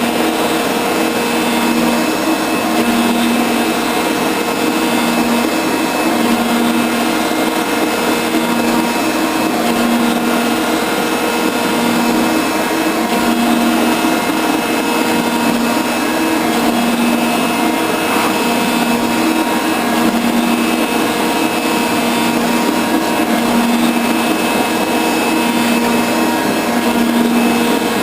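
Metal shaper running with a shear tool taking a cut in steel, the ram stroking back and forth so the machine's hum swells and drops in a regular cycle about every two seconds.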